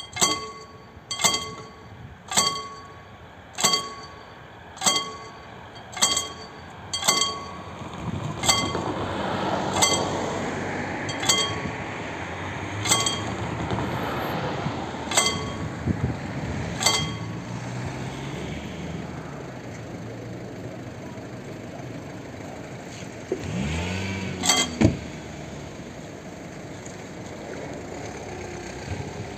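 Warning bell of a mechanical, cable-worked level-crossing barrier ringing single strokes as the barrier is lowered, each stroke ringing on. The strokes start about a second apart, slow down and stop about two-thirds of the way through, with one more stroke later. A car drives past in the middle.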